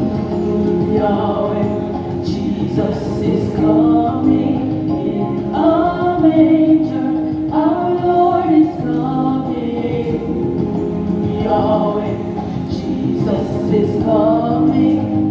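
Music: a group of voices singing a gospel song over steady, held accompaniment chords.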